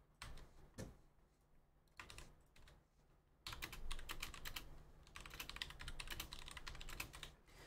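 Typing on a computer keyboard: a few scattered keystrokes, then a quick, steady run of typing from about three and a half seconds in.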